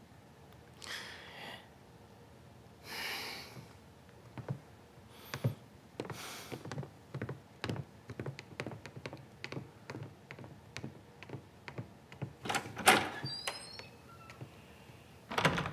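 Footsteps of hard-soled boots on a wooden floor, a long run of short sharp clicks. About thirteen seconds in comes a louder door thunk with a brief squeak.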